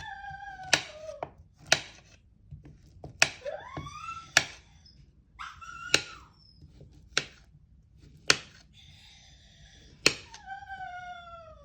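A knife cutting banana on a cutting board, a sharp tap roughly once a second. A dog whines between the cuts: several high calls that slide downward.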